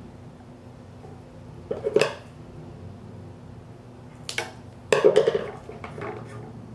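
Small hand tools handled on a hard desk: a clatter about two seconds in, then a click and a longer clatter around five seconds in.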